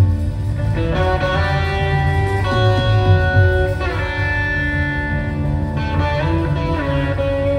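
Live blues-rock band playing an instrumental passage: an electric guitar lead holds long notes, some bending in pitch, over bass and drums.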